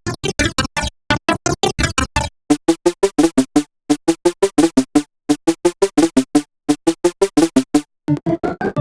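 Ableton Meld synthesizer preset playing a fast staccato sequence of short pitched notes, about eight a second, in phrases broken by brief pauses. Near the end a different, buzzier preset takes over.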